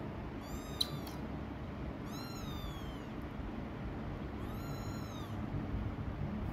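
A young kitten meowing three times: short, high-pitched calls that rise and fall in pitch, about two seconds apart, the first one faint. A steady low rumble runs underneath.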